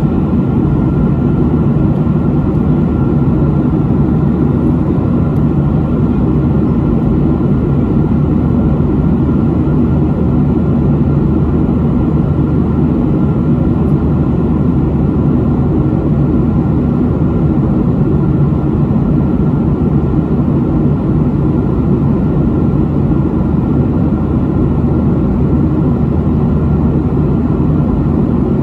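Steady cabin noise of a Boeing 737 jet airliner heard from inside the cabin: a constant, deep engine and air rush that holds at one level throughout.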